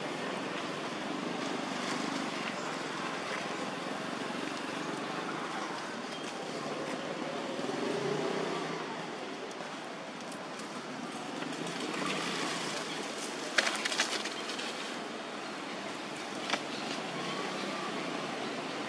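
Steady outdoor background noise with no clear source, broken by a few sharp clicks and knocks about two-thirds of the way through.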